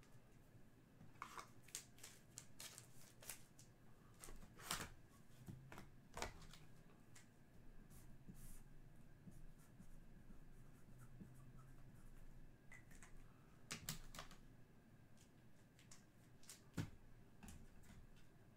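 Faint handling of trading cards and foil packs: scattered light rustles and clicks at irregular moments, a few of them sharper.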